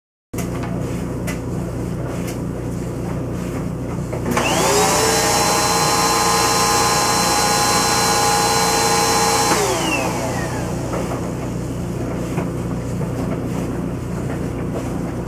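Upright vacuum cleaner switched on about four seconds in: its motor whines up to speed, runs steadily for about five seconds, then is switched off and whines down, showing that the repaired extension cord carries power. A steady low hum runs underneath throughout.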